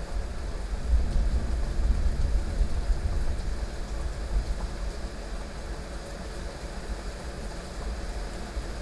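Heavy rain falling steadily, with a low rumble of rolling thunder that swells about a second in and slowly fades away.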